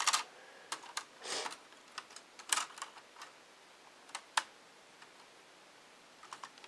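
Irregular clicks and taps as fingers press ribbon cables and small connectors into a Dell Inspiron 1420 laptop's board and plastic chassis, with a brief rustle about a second and a half in.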